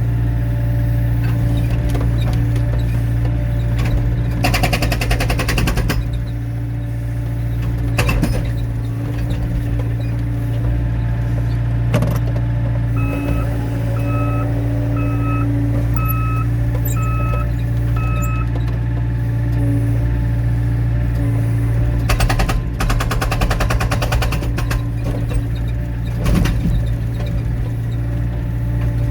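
Excavator engine running steadily while its hydraulic breaker hammers rapidly into wet logs to split them for firewood, in two bursts of about two seconds each, with a few single knocks between. In the middle, an alarm beeps six times in short even pulses.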